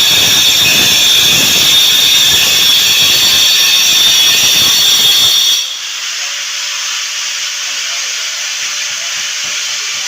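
Electric power tool, most likely an angle grinder, grinding the old mortar and tile bed under lifted floor tiles: a loud steady grinding hiss with a high whine. About halfway through it drops to a lighter, quieter run.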